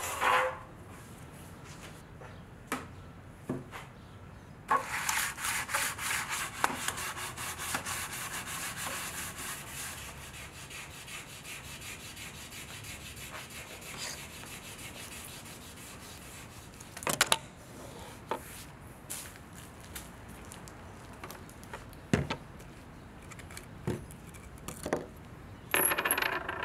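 Hands working plastic Range Rover Classic center console parts on a wooden workbench. About five seconds in there is a stretch of rubbing and scraping that fades out over several seconds, and scattered knocks as parts are set down on the bench.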